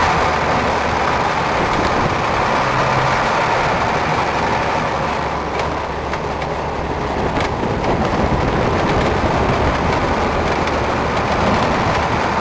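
Steady engine and road noise of a moving motor vehicle, heard from inside it, dipping slightly about halfway through.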